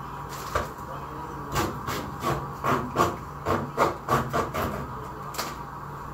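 A string of irregular knocks and clinks, about a dozen, from kitchen utensils or containers being handled, over a steady low hum.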